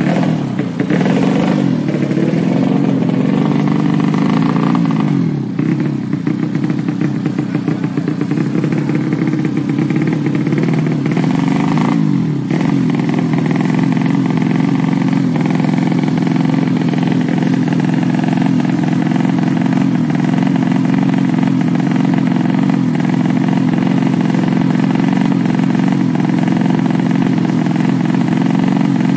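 Yamaha Jupiter Z underbone's four-stroke single-cylinder engine, tuned up to 130cc for road racing, running. It is blipped unevenly in the first few seconds, then settles into a steady, even idle.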